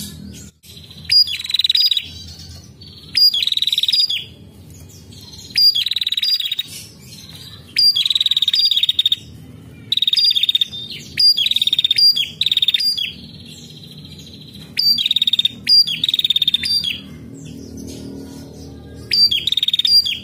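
Female prenjak, a small warbler-type songbird, calling over and over in short rapid trills. Each phrase is a fast run of high-pitched ticks lasting about a second, with about ten phrases coming every one to two seconds.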